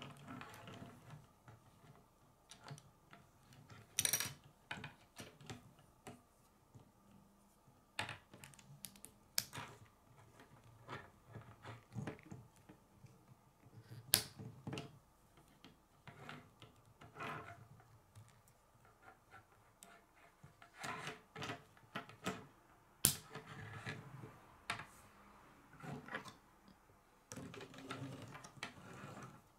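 Plastic K'nex rods and connectors clicking as they are snapped together by hand: irregular sharp clicks and light rattles, with a few louder snaps.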